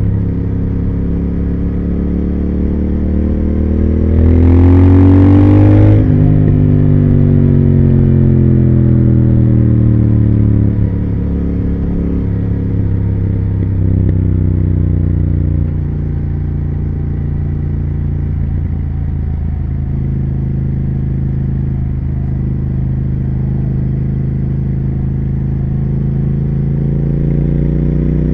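2020 Triumph Speed Twin 1200's parallel-twin engine and exhaust under way. It pulls hard with rising revs, shifts up about six seconds in, then the revs fall away into steady cruising before picking up again near the end.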